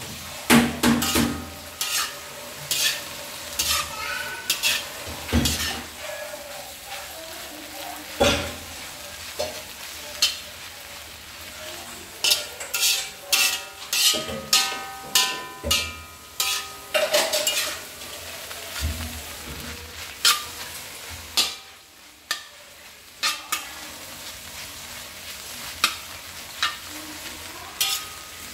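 Food stir-frying in a metal pan: a spatula scraping and knocking against the pan many times at an irregular pace over a steady sizzle.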